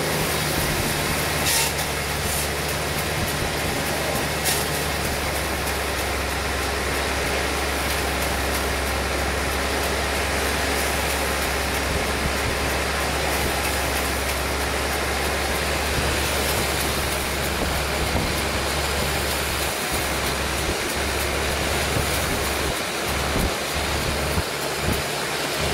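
Sawmill machinery running steadily: a constant low engine drone under a broad, even rushing noise.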